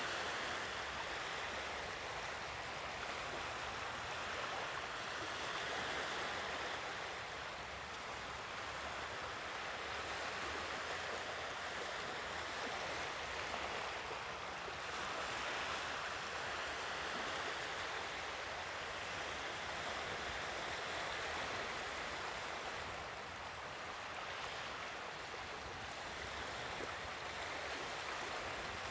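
Sea waves washing onto the shore, a steady rush that swells and eases every several seconds.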